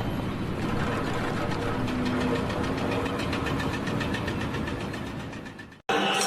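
Heavy engine running steadily with a regular knocking beat. It fades away and cuts off sharply just before the end, when music starts.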